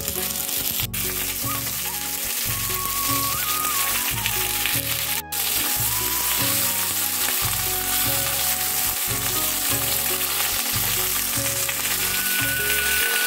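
Pointed gourd (potol) pieces sizzling steadily as they fry in hot oil in a wok, turned now and then with a metal spatula. A background music track plays underneath.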